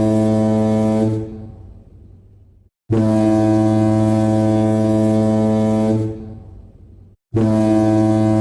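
A low, horn-like alarm tone sounding in repeated long blasts. Each blast holds steady for about three seconds, fades away over a second or so, drops to dead silence, then restarts abruptly, about every four and a half seconds.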